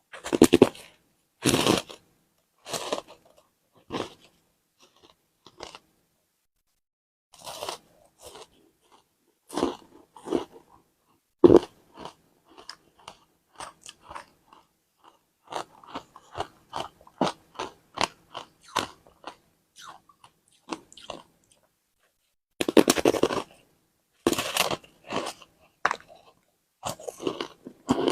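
Frozen matcha ice being bitten and chewed close to the microphone: loud, sharp crunches of individual bites, then a stretch of quick, smaller chewing crunches, then more big bites near the end, with short pauses between.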